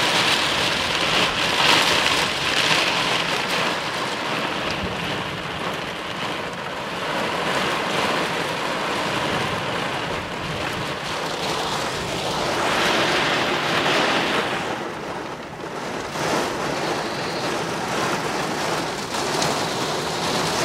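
Heavy thunderstorm rain drumming on a car's roof and windows, heard from inside the cabin. It stays steady with two swells: one near the start and one a little past halfway.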